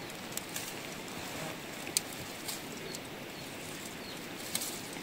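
Nettle stems and leaves being picked from a bush by hand: faint rustling with a few sharp little snaps, over a steady outdoor hiss.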